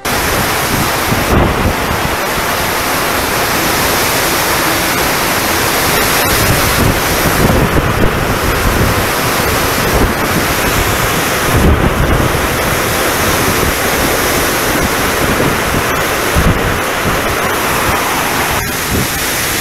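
Typhoon wind and torrential rain: a loud, dense, steady rush of driving rain, with gusts surging low down as the wind buffets the microphone.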